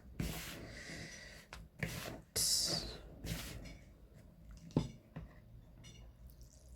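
Hands kneading wet, sticky doughnut dough in a bowl: irregular squishing and rustling, loudest in the first three seconds, with one sharp knock a little before five seconds in.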